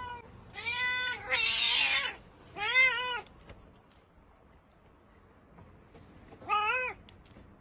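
Cat meowing three times, each call rising and then falling in pitch, with a short hissing noise between the first two meows.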